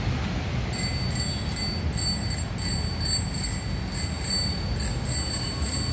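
Bicycle bell rung over and over, its bright ringing coming in quick repeated pulses from about a second in, over a low rumbling noise.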